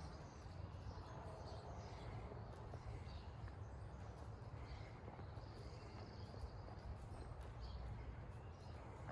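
Faint steps of a horse walking on sand arena footing, under a steady low rumble, with scattered high bird chirps.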